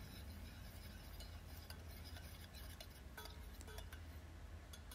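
Faint scraping and a few light clinks of a metal spoon stirring fried tomato-pepper paste in a stainless steel pot.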